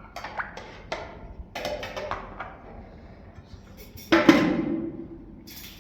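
Dishes and pots clattering as they are set down: a run of knocks and clinks, then a loud clang about four seconds in that rings and fades over a second or so.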